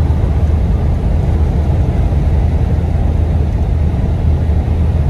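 Steady low engine drone and road noise inside the cab of a truck cruising on a motorway.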